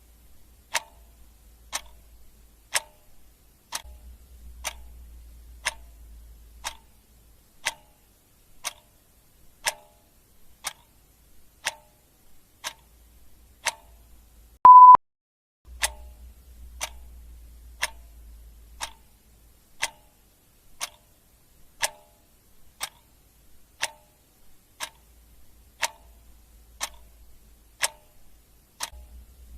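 Clock ticking sound effect, one sharp tick about once a second. About halfway through, a single short, loud beep sounds.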